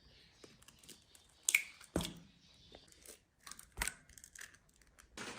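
Eggs being cracked for a fritter batter: two sharp knocks of shell against a bowl, about two seconds apart, among small clicks and crackles of handling.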